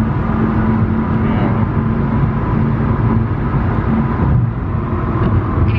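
Steady low road and engine rumble inside a moving car, with a constant hum.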